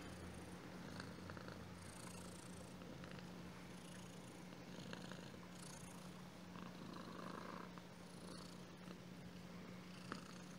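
Black-and-white domestic cat purring quietly and steadily while being stroked on the head and chin, with faint rustling of the hand on its fur.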